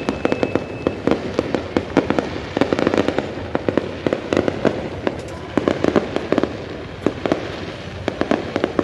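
Aerial fireworks going off in rapid succession, a dense run of bangs and crackling bursts that thins out in the last couple of seconds as the display winds down.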